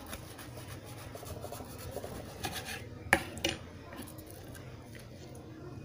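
A knife sawing and scraping through a toasted sandwich on a wooden cutting board, with a few sharp clicks about two and a half to three and a half seconds in.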